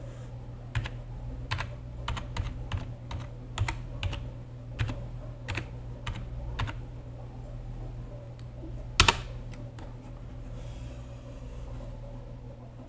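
Computer keyboard being typed on: about a dozen separate keystrokes over the first seven seconds, then one sharper, louder key click about nine seconds in.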